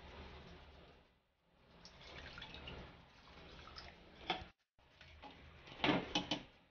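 Metal ladle stirring thick curry in an aluminium pressure cooker, with a few sharp clinks against the pot near the end.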